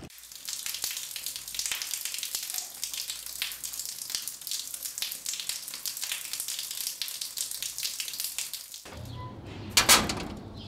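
Shower water spraying: a steady crackling hiss that cuts off about nine seconds in, followed by a brief louder clatter.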